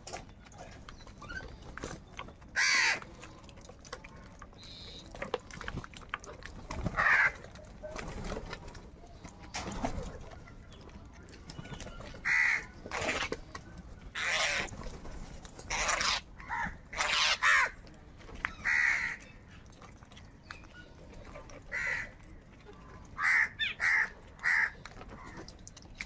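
House crows cawing: short, harsh caws scattered every second or two from different birds, with a quick run of several caws near the end.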